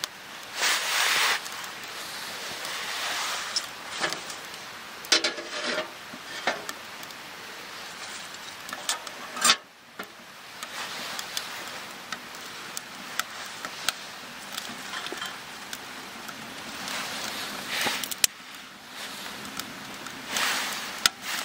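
Fire burning in a small steel wood stove, with sharp crackles and pops from the kindling catching. Several louder bursts of rustling and knocking come from wood being handled and fed in beside the stove.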